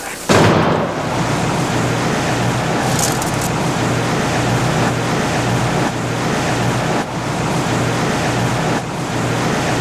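Steady loud workshop machinery noise with a low hum, starting abruptly just after the start, from license-plate-making equipment. A brief high hiss comes about three seconds in.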